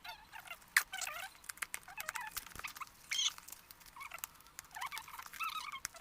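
Plastic packaging cover being pulled off a cardboard box, crinkling and squeaking with scattered sharp clicks.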